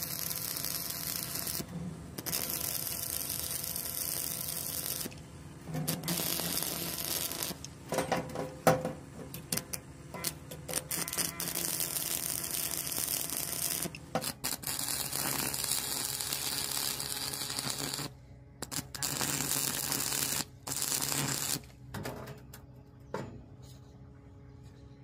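Stick (arc) welding: the arc crackles and hisses steadily in runs of several seconds, breaking off briefly between runs. A few sharp knocks come about a third of the way in.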